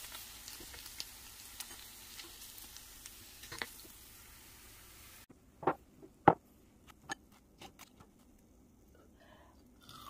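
Pork belly deep-frying in a pot of oil: a steady sizzle with scattered small pops, cutting off about five seconds in. Then a few sharp clicks as metal kitchen tongs are handled over a bowl.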